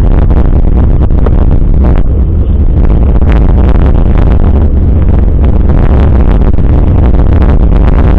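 Loud, steady rumble of wind buffeting and ride vibration on a bicycle handlebar camera's microphone while riding over stone paving.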